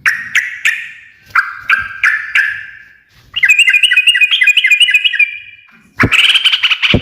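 Yellow-vented bulbul (trucukan) chattering loudly in repeated bursts of rapid, bubbly notes, four phrases of about a second or two each with short pauses between. A low thump comes near the end.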